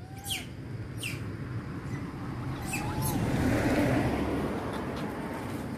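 A vehicle passes on the road: its noise swells to a peak about four seconds in, then fades. Over it, short high chirps that drop quickly in pitch sound several times.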